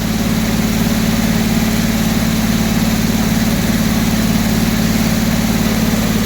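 Gasoline engine of a circular sawmill running at a steady speed.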